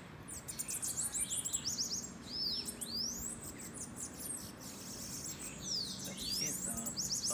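Bananaquits singing: a rapid run of high, thin chirps and quick rising and falling notes, overlapping one another.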